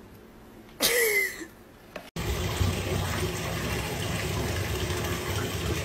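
Water poured steadily from a plastic cup over a wet cat in a bathtub, starting about two seconds in after a short, loud cry with a falling pitch.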